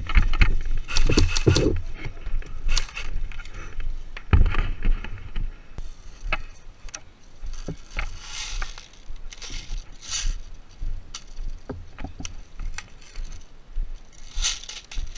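Handling and movement noise from an airsoft player's gear: clothing and equipment rustling and scraping, with scattered sharp clicks and knocks. The heaviest scraping comes about a second in and again around four seconds in.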